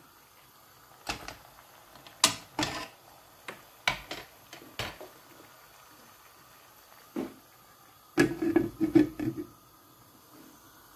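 Clinks and knocks of a ceramic plate on a wire steaming rack being set down into a wok. About eight seconds in comes a quick cluster of knocks and rattles as a glass lid is put on.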